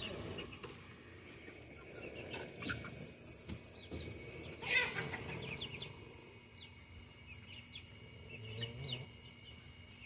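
A small flock of chickens clucking softly, with short scattered calls and one louder squawk about five seconds in.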